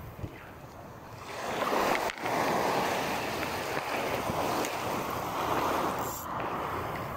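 Small waves washing in over sand in shallow surf, swelling about a second in and easing off near the end.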